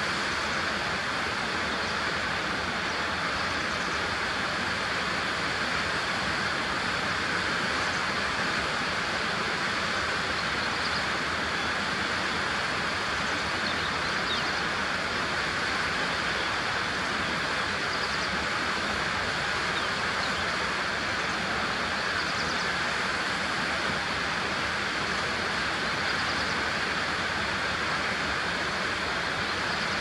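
A steady, even rushing noise, with faint high bird notes every few seconds.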